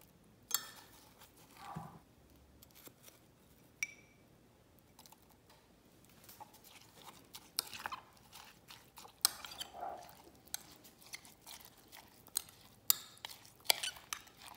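Metal spoon clinking and scraping against a glass Pyrex measuring cup while a wet seasoning sauce is spooned in and stirred. The clinks are irregular and sharp, and one rings briefly.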